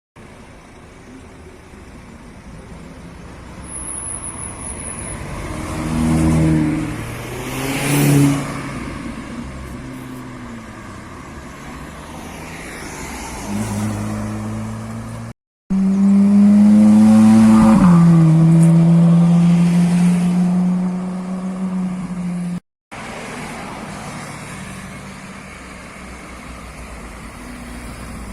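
Tuned car engines revving, in several short clips. The loudest is an engine held at high revs for about six seconds, dropping in pitch partway through. Two quicker blips of revs come earlier.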